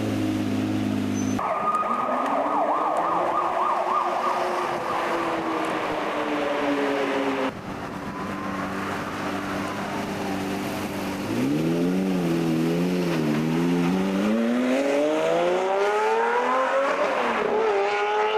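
Supercar engines heard in a run of short cuts: one idles steadily, then after abrupt cuts another holds its revs and sags, and near the end an engine is blipped a few times before revving up in a rising sweep as the car accelerates.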